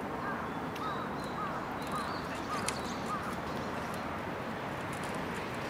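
A bird calling a run of about six short, arched chirps, a little under two a second, over steady outdoor background noise.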